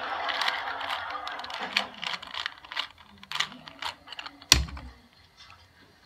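Plastic clicking and clacking of a 2x2 Rubik's cube being turned quickly by hand during a speed-solve, with one louder knock about four and a half seconds in.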